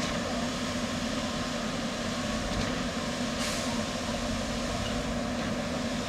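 Steady drone of truck-mounted concrete pumps' diesel engines running, with a brief hiss about three and a half seconds in.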